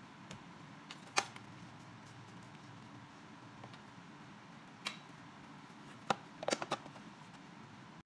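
Faint plastic clicks and taps over a steady low room hum: single clicks twice, then a quick cluster of louder clicks about six seconds in as the plastic lid is set onto the microwave cooking box.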